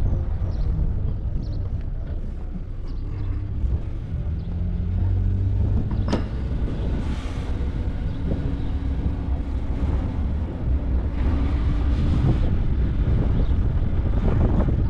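Car engine and tyre rumble heard from inside a moving car on a dirt track: a steady low drone, with one sharp knock about six seconds in.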